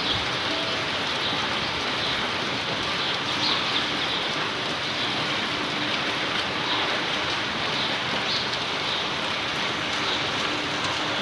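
Heavy rain falling steadily during a tropical cyclone, an even, unbroken hiss of rain on surfaces.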